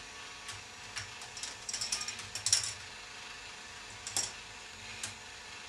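Rotating K'nex ball machine running: plastic clicks and clatter from the K'nex track and parts. Single ticks come first, then a quick run of clattering clicks about one and a half to two and a half seconds in. A few more single clicks follow near the end.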